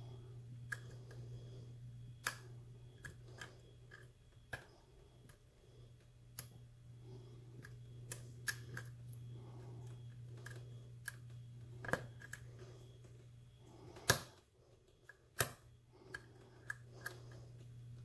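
Sparse, irregular small metallic clicks and ticks of a lock pick probing the pin stack of a 38 mm Ace brass padlock held under a tension wrench, where the pins are bound tightly. Two sharper clicks stand out about 14 and 15 seconds in, over a steady low hum.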